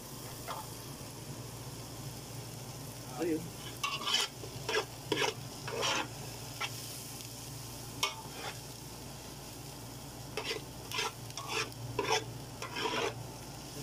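A spoon scraping and stirring in an aluminium pot in quick runs of strokes, a few seconds in and again near the end, over onion, garlic and chili sizzling as they sauté in oil.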